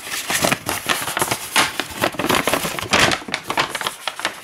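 A folded paper instruction sheet being unfolded and handled, rustling and crackling in quick, irregular bursts close to the microphone. The rustling thins out near the end.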